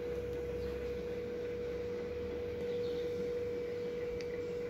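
A steady single-pitched hum over a low rumble, with a faint click about four seconds in.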